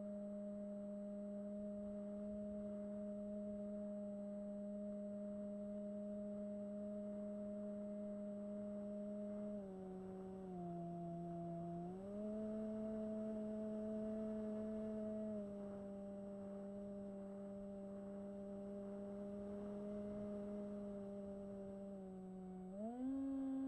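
Bixler 1 model plane's electric motor and propeller, a steady whine. Its pitch drops and rises a few times with throttle changes: down about ten seconds in, back up about two seconds later, and up again near the end.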